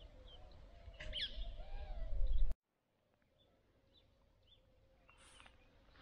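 Wild birds chirping with short calls, over a low rumble that grows louder for the first couple of seconds. Halfway through, the sound cuts off abruptly, leaving only a few faint chirps.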